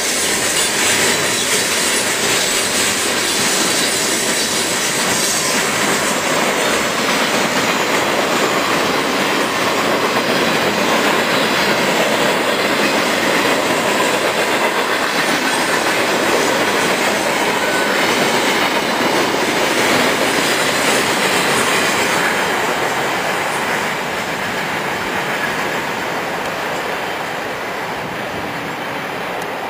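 Freight train cars rolling past close by: a steady, loud rush and rattle of steel wheels on the rails. It eases off somewhat in the last several seconds.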